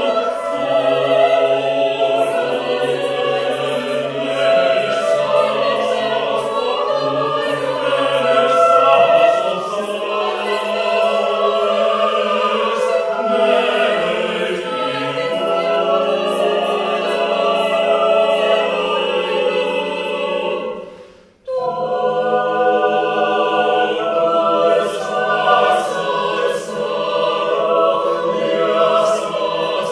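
Mixed-voice chamber choir singing a cappella in held, layered chords, women's and men's voices together. About two-thirds through, all the voices stop at once for a moment, then the chord comes back in.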